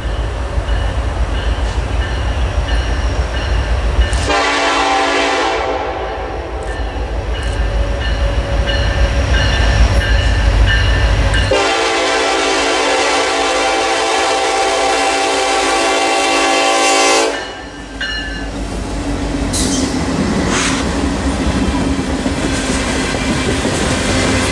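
Norfolk Southern coal train led by an SD70ACe and a C44-9W diesel locomotive: the locomotives rumble as they approach, and the lead unit's horn sounds twice, a shorter blast about four seconds in that fades away and a long blast of about six seconds that stops abruptly. Then coal hopper cars roll past, their wheels clacking over the rail joints.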